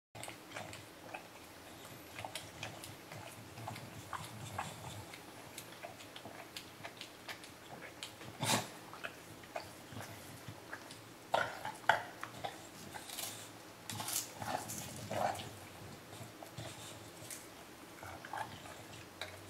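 English bulldog licking an ice cream cone held out by hand: a run of short, irregular wet tongue smacks and laps, with a few louder ones about eight seconds in and again around twelve and fifteen seconds.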